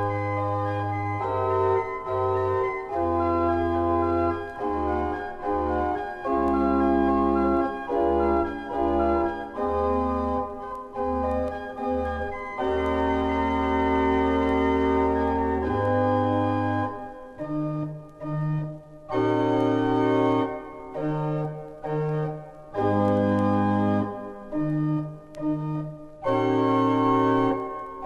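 A 1902 Wilhelm Sauer late-romantic pipe organ playing: full held chords over long, deep pedal notes, then from about halfway through, shorter detached chords and bass notes with brief gaps between them.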